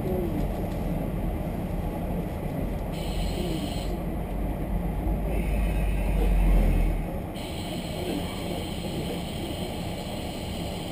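Diesel railcar heard from inside: a steady engine and running rumble, with the low rumble dropping away about seven seconds in. Faint voices murmur in the background.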